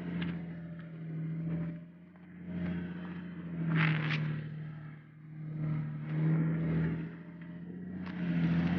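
An off-road 4x4's engine running at low speed, its level swelling and easing every second or two, with a couple of brief sharp knocks.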